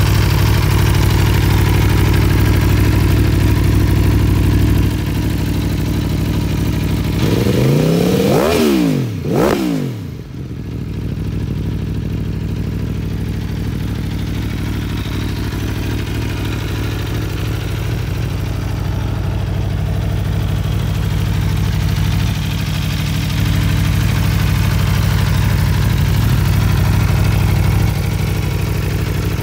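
Aprilia Tuono V4 1100 Factory's 1077 cc V4 engine idling steadily. About a third of the way in it is revved twice in quick succession, the pitch rising and falling back each time, and then it settles back to idle.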